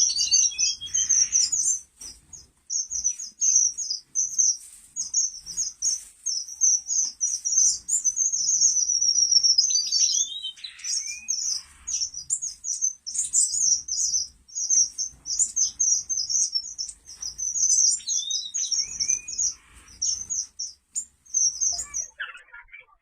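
A colony of small finches in an aviary chirping, a near-continuous chatter of short high notes with a few lower, falling calls among them, dying away about a second before the end.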